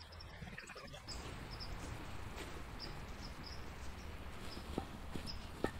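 Road flares burning inside a fiberglass welding-blanket bag with a steady hiss that swells about a second in, and a couple of sharp clicks near the end.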